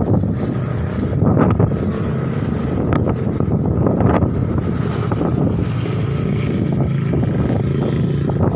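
Strong wind gusting across the microphone: a continuous low rumble of buffeting with many short sharp gusts.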